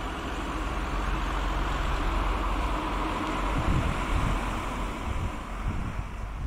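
Steady, dense hum of a honeybee swarm clustered on a branch, with wind rumbling on the microphone in gusts.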